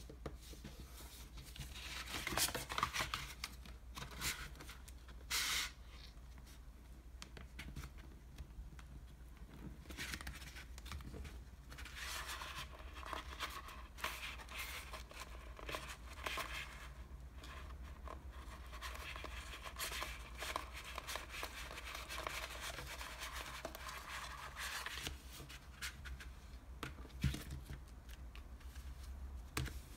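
Thin printed paperboard of an ice cream box being handled: unfolded, slid and pressed flat by hand, giving dry rustling, scraping and crinkling with a few louder crackles, and a longer stretch of steady rustling partway through. A faint steady low hum sits underneath.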